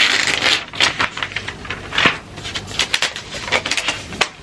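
Packaging being handled during an unboxing: irregular crinkling, rustling and clicking, loudest at the start and about two seconds in.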